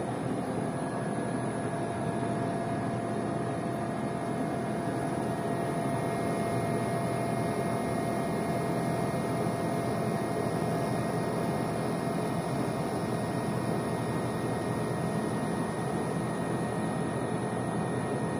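Outdoor unit of a Gree Soyal 12,000 BTU split air conditioner running: a steady rushing fan and compressor noise with a few faint, steady whining tones over it.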